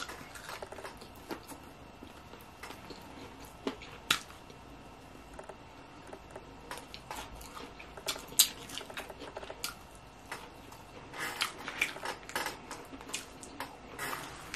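Close-up eating sounds: biting into and chewing fried chicken wings, with scattered short wet clicks. A plastic fork taps and scrapes on a paper plate, with a cluster of clicks about three-quarters of the way through.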